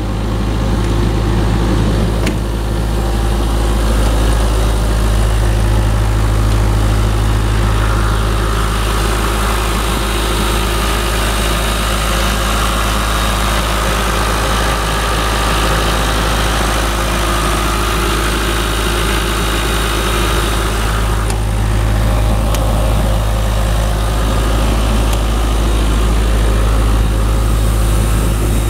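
2000 Ingersoll Rand P185WJDU portable air compressor's John Deere four-cylinder diesel engine running steadily with an even, deep hum. A rushing, higher-pitched sound is strongest through the middle stretch, close to the open engine bay.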